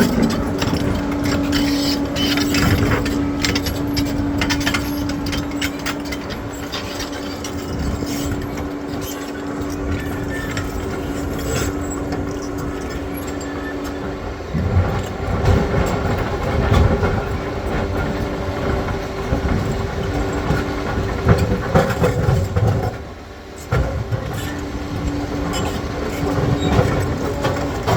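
Crawler bulldozer at work on rocky ground: its diesel engine runs steadily under a constant clatter of steel tracks, with knocks and scrapes of rock against the blade. Heavier thuds come in about halfway through, and the sound dips briefly near the end.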